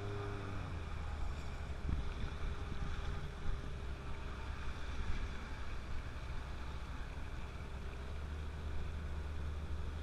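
Outboard motor pushing an inflatable boat along at speed: a steady low drone with the rush of water and wind over it.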